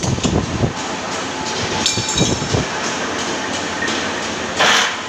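Metalworking machinery in an aluminium scaffolding workshop running: a steady mechanical din with clattering. There is a short metallic burst about two seconds in and a brief loud burst near the end.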